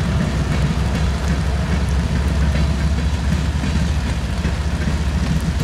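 Covered hopper cars of a freight grain train rolling past: a steady, loud, low rumble of steel wheels on the rails.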